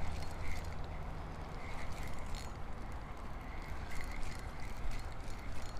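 Spinning reel being cranked by hand, with irregular light clicks over a steady low rumble.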